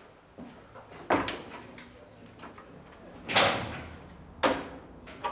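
A wooden apartment door being closed: a few sharp knocks and clunks, the loudest about three seconds in as it shuts, then a short click about a second later.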